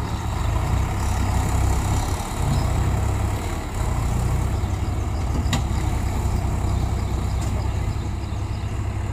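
Swaraj 843 XM tractor's three-cylinder diesel engine working hard under load as it hauls a fully loaded sand trolley out of deep mud, a loud steady rumble that eases off briefly a couple of times.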